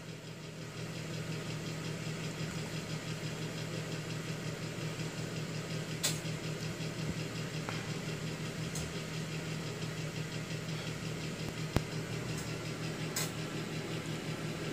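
A steady low hum with a fine, rapid pulse to it, broken by a few faint clicks about six, nine and thirteen seconds in.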